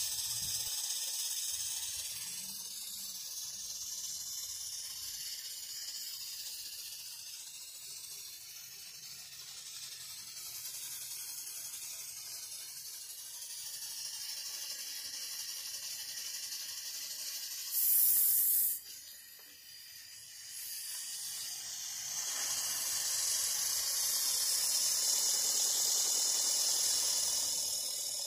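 Live steam hissing from a model twin-cylinder oscillating steam engine running off a small vertical boiler. A short loud burst of hiss comes about two-thirds of the way through, and the hiss is louder again in the last few seconds.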